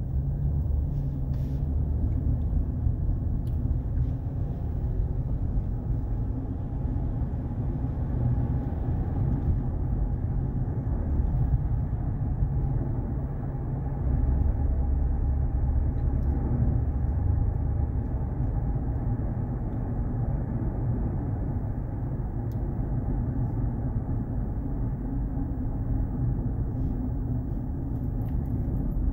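Steady low rumble of a car driving in city traffic, heard from inside the cabin: engine and tyre noise, swelling a little for a few seconds about halfway through.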